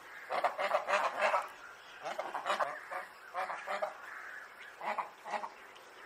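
Rose-ringed parakeets squawking: harsh, rasping calls in four short clusters about a second apart, with brief lulls between them.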